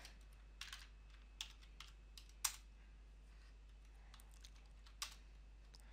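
A few scattered keystrokes on a computer keyboard, with near silence between them: a handful of short clicks in the first two and a half seconds and one more about five seconds in.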